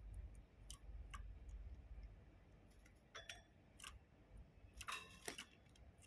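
Near silence broken by faint, irregular clicks and taps, with a small cluster of them about five seconds in.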